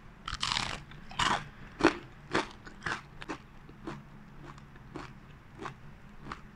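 Crisp deep-fried masala vadai (dhal fritter) being bitten into and chewed: two loud crunches at the first bite, then a run of shorter crunches about two a second that grow fainter.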